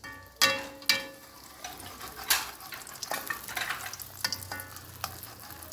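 Egg frying and sizzling in a pan while a spatula scrapes and knocks against the pan. Three sharp clanks in the first two and a half seconds ring briefly.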